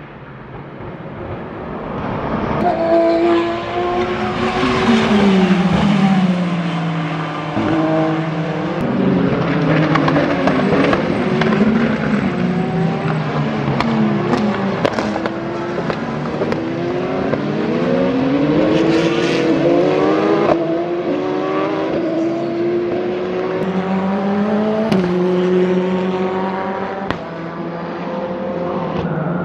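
Several endurance race cars going past in turn at racing speed. Their engine notes overlap and keep climbing and dropping in pitch with quick gear changes.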